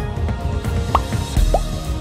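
Background music with a steady beat, with two short rising, droplet-like notes about a second and a second and a half in.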